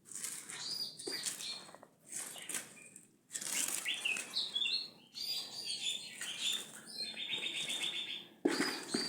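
Songbirds chirping in short calls, with repeated bursts of wing flapping and a fast trill about seven seconds in.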